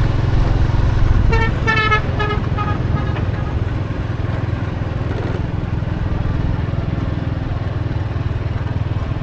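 Motorbike engine running steadily with road and wind noise while riding. A few short horn beeps sound between about one and three seconds in.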